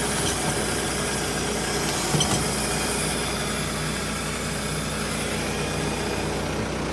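Antonio Carraro 10400 TRG tractor's four-cylinder turbo-intercooled Mercedes engine idling steadily, with a brief click about two seconds in.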